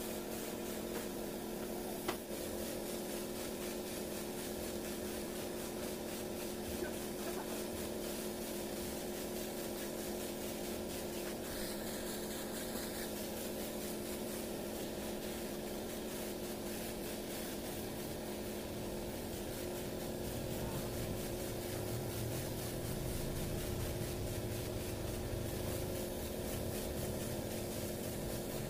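Hopper spray gun hissing steadily as it sprays water-thinned caldera texture coating onto a speaker cabinet, over the steady hum of the air compressor feeding it. A low rumble builds about two-thirds of the way through.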